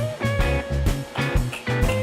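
Background music with a steady beat, bass and a guitar-led melody.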